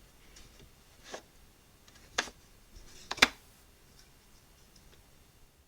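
Light wooden knocks from the birch plywood toy garage being handled: three short knocks about a second apart, the last the loudest.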